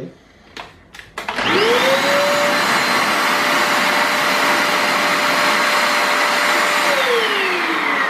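Multilaser HO03 1000 W 2-in-1 stick vacuum cleaner starting after a few clicks: the motor spins up with a rising whine, runs steadily with a rush of air and a high whine for about five seconds, then is switched off and winds down with a falling whine.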